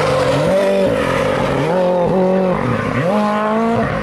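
M-Sport Ford Fiesta rally car's 1.6-litre turbocharged four-cylinder engine, revving hard and repeatedly dropping and climbing in pitch as the driver lifts and gets back on the throttle, about three times.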